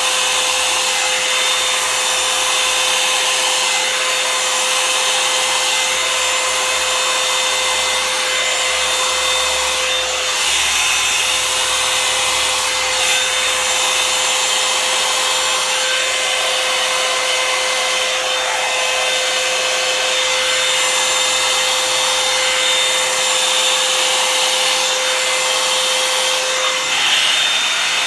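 Revlon Salon one-step hair dryer and styler (paddle-brush hot-air dryer) running steadily on its high setting while it is drawn through a section of wet hair. A steady rush of air with a constant motor whine, which drops out near the end.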